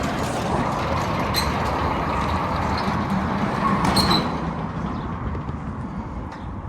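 Harley-Davidson Sportster chopper's V-twin engine running with a rapid low pulse, loudest about four seconds in and then fading.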